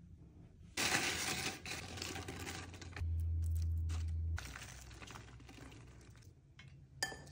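Tortilla chips crinkling and clattering as they are tipped and spread over a cast-iron pizza pan, followed by lighter scraping and crackling as toppings are spread across the chips. A low steady hum sounds for about a second and a half midway.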